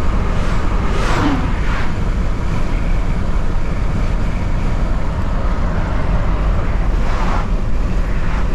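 Road and engine noise inside a Kia camper van cruising at highway speed, a steady low rumble. Oncoming vehicles whoosh past about a second in and again near the end.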